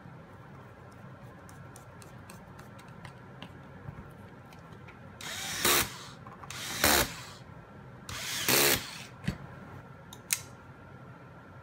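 Cordless electric screwdriver driving a folding knife's handle screws home in three short runs of under a second each, each building to a peak as the screw seats. Faint ticks of small parts being handled come before, and two sharp clicks follow.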